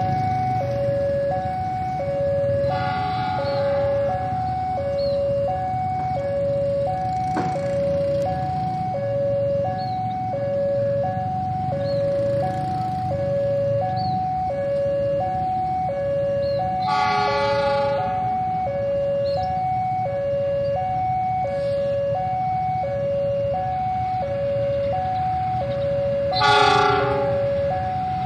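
Railway level crossing alarm sounding its two-tone electronic ding-dong, a high and a low note alternating about every half second, over a low rumble. Short horn blasts cut in about a third of the way through and again near the end, the last one the loudest moment.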